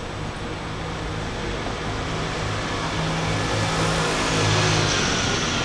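A road vehicle driving past, its engine and tyre noise growing louder to a peak about four and a half seconds in, then easing off.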